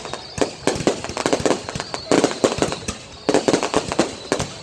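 Fireworks going off as rapid strings of sharp cracks and bangs, in about three bursts of roughly a second each with short lulls between.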